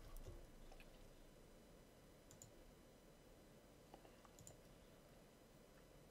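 Near silence: room tone with a few faint computer-mouse clicks.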